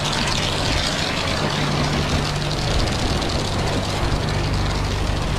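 Pressure washer running steadily: the hiss of water spraying from the lance over the steady low drone of its motor and pump.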